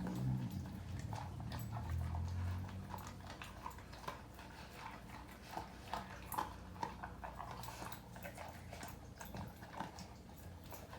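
A Doberman eating fast from her bowl: quick, irregular crunches and clicks of chewing and of food against the bowl. A low rumble runs under the first few seconds.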